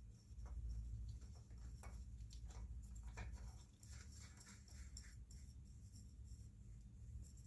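Faint scraping and light clicks of a spin-on oil filter being threaded back onto a lawn mower engine by hand, over a low steady hum.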